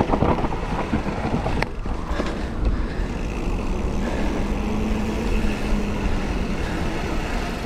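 Mountain bike rolling fast down a paved road: wind rushing over the camera microphone and the wheels on the asphalt, with a sharp click of the bike about two seconds in and a steady hum from the wheels in the second half.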